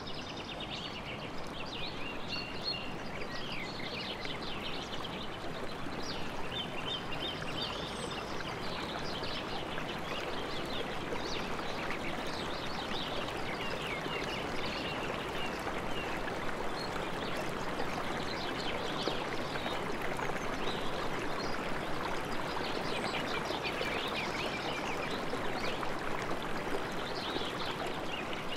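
A river running steadily, with many birds chirping and singing over it throughout.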